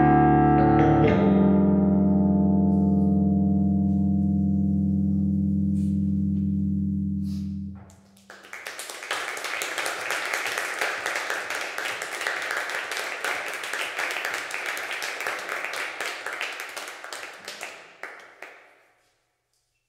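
Rhodes electric piano holding a low chord that rings out and slowly fades, then stops about eight seconds in. A dense, fine crackling patter follows for about ten seconds and fades away near the end.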